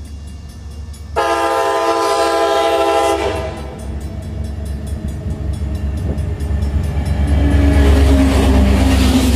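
Metra commuter train's diesel locomotive sounds one horn blast, a chord of several steady tones, about a second in, lasting about two seconds. The engine and wheels then grow louder as the locomotive passes close by.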